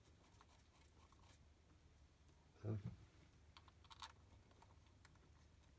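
Mostly near silence with faint small clicks and taps as the Speedseal cover plate and its thumb screws are fitted by hand to a marine diesel's raw-water impeller pump, and one louder dull thump about two and a half seconds in.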